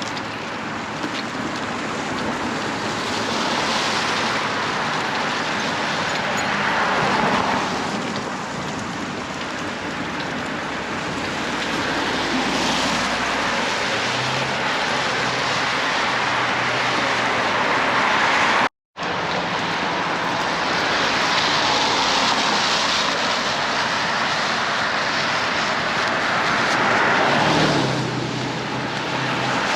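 Vehicle driving, a steady hiss of road and tyre noise that swells and fades slowly, broken by a brief cut to silence about two-thirds of the way through.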